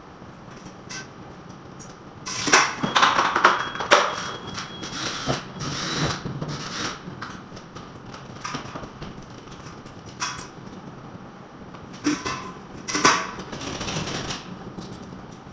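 Irregular knocks and scrapes of hand tools during wall repair work, busiest about two to four seconds in and again near the end.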